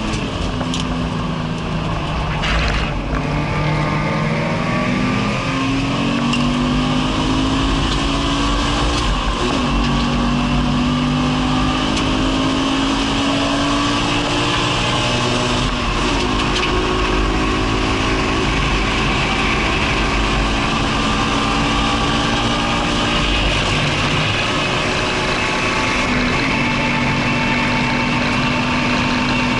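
A Subaru BRZ's stock, naturally aspirated 2.0-litre flat-four engine at racing pace, heard from inside the cabin under hard acceleration. Its pitch climbs slowly, with a few sudden drops, over steady road and wind noise.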